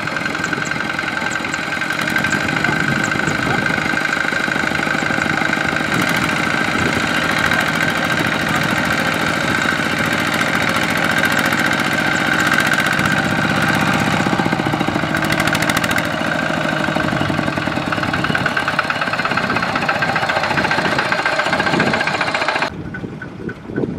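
Single-cylinder diesel engine of a two-wheel walking tractor running hard and steady with a rapid knocking beat as it hauls a rice-laden trailer through mud. Near the end the sound suddenly drops much quieter.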